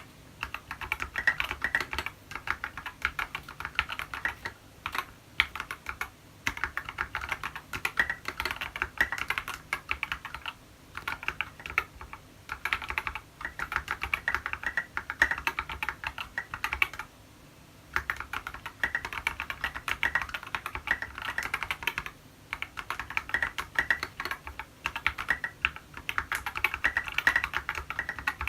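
Typing on a TX65 mechanical keyboard with SA profile keycaps and lubed Tealios linear switches: fast runs of keystrokes with a few short pauses, the longest about a second long around 17 seconds in.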